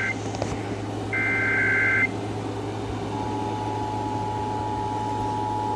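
Emergency Alert System SAME header: the end of one shrill two-pitch data burst, then a full burst about a second in. About three seconds in, the steady two-tone EAS attention signal starts and holds. This is the signal that opens an alert or test broadcast, over a steady low radio hum.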